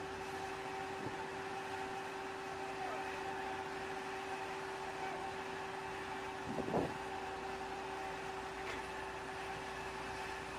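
Steady machinery drone on an aircraft carrier flight deck: an even rushing noise with a constant, unchanging hum, and one short louder bump about six and a half seconds in.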